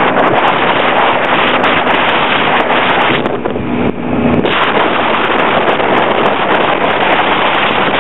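Wind buffeting the microphone of a moving scooter, with the scooter's engine humming steadily underneath. The wind noise eases for about a second just past the middle.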